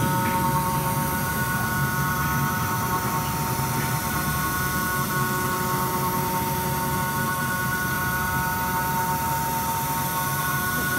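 CNC machining center for aluminum molds running steadily: a whine of several held tones over continuous mechanical noise and a low rumble.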